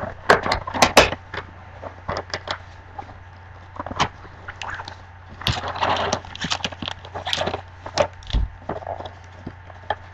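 Cardboard trading-card box being opened and handled by gloved hands: flaps and inner box scraping and knocking, with the packs rustling as they are slid out and stacked, in a string of sharp crackles and taps with a few longer rustles.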